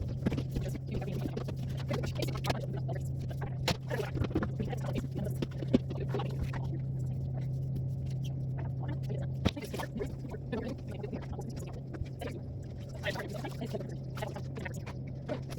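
Scattered knocks and clicks of things being handled during cleaning, over a steady low hum that drops slightly about nine and a half seconds in.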